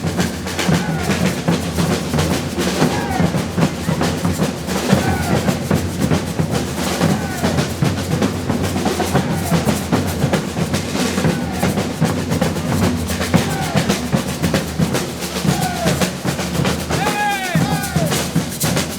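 Brazilian street percussion band playing: bass drums and snare drums in a steady, driving rhythm with snare rolls, and short swooping pitched sounds recurring over the drums.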